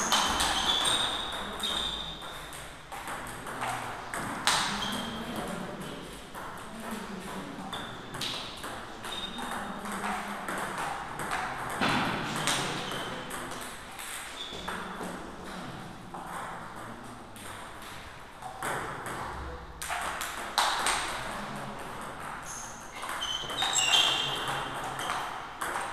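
Table tennis rallies: the plastic ball clicking sharply off the rackets and bouncing on the table in quick, irregular exchanges.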